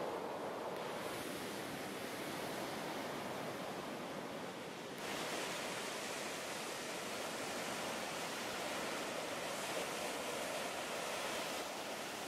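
Sea surf breaking and washing over a pebble shore: a steady rushing noise that turns brighter and hissier about five seconds in.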